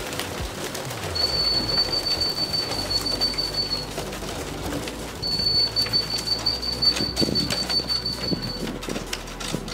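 Racing pigeons cooing, with some wing flapping and scattered clicks. A steady high-pitched tone sounds twice, for about three seconds each time, starting about a second in and again about five seconds in.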